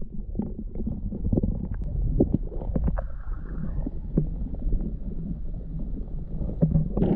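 Muffled underwater rumble of river current heard through a camera held under the water, with many small knocks and taps scattered through it.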